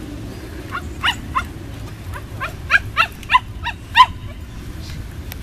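An animal calling: a quick series of about ten short calls, each rising in pitch, the last one the loudest.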